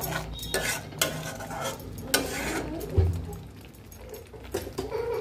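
A spatula stirring and scraping thick masala paste frying in oil in an aluminium kadai, with a light sizzle and several sharp knocks of the spatula against the pan, the loudest about three seconds in. The spices are being fried down.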